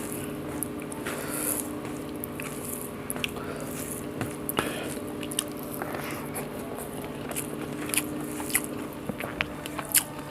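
Close-up eating sounds: a mouthful of rice, omelette and coriander chutney chewed with wet, squishy smacking and many sharp clicks, getting busier near the end. A steady low hum runs underneath.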